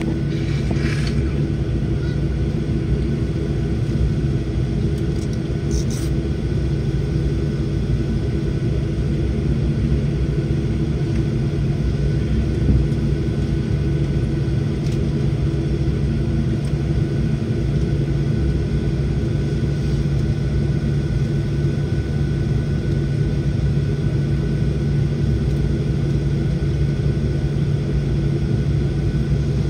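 Steady low rumble and hum inside a jet airliner's cabin on the ground after landing, with the engines at idle and a few steady tones held over the drone.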